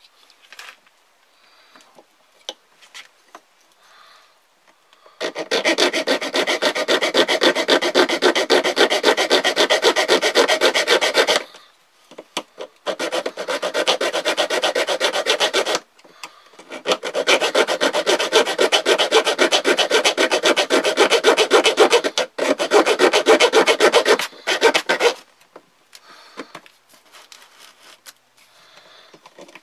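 The metal-cutting saw blade of a Victorinox Swiss Army knife, sawing by hand through a piece of coat-hanger wire in quick back-and-forth strokes. It runs in three spells of a few seconds each, with short pauses between, after a few seconds of light handling clicks. It is slow going: the wire cuts, but slowly.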